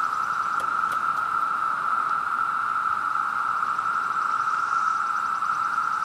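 Chorus of 17-year periodical cicadas: many insects together making one steady, even whine that never breaks or changes pitch.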